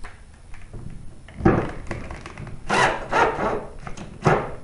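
A cordless drill/driver drives a screw to tighten a mounting bracket onto a sheet-metal ballast frame, in a few short bursts.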